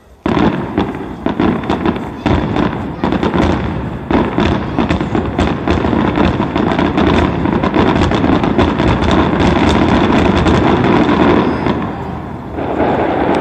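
Fireworks going off in a dense barrage of bangs and crackling that starts abruptly. It thins out near the end, then comes back in one more short flurry.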